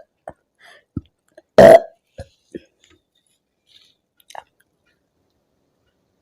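A woman's single loud soda burp about a second and a half in, brought up by gulping carbonated Limca. Small mouth clicks and swallowing sounds come before and after it.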